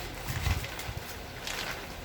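Handling noise during an unboxing: a low bump about half a second in and a brief rustle or scrape about a second and a half in.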